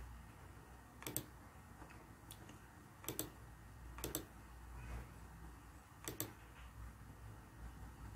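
Computer mouse clicking: about five sharp clicks a second or so apart, most heard as a quick double tick, over a faint steady hum.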